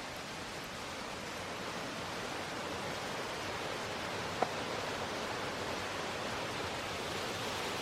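Steady rushing roar of a large waterfall, growing slightly louder, with one short sharp sound about halfway through.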